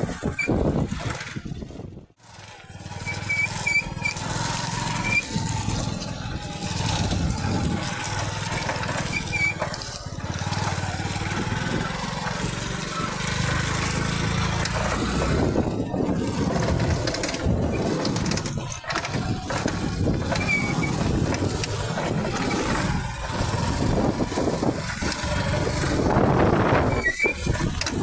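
Motorcycle engine running under load with two people aboard on a rough dirt track, mixed with wind on the microphone. The sound dips briefly about two seconds in, and a few short high chirps come in the first few seconds.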